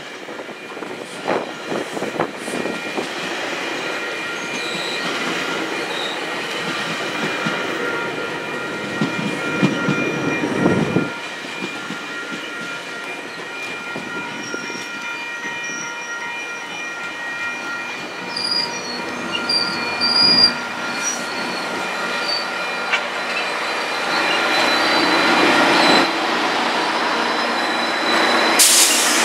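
GO Transit bilevel commuter coaches rolling past on the rails, with clicking over the rail joints and steady high-pitched wheel squeal. Near the end it gets louder as the train's two diesel locomotives pass.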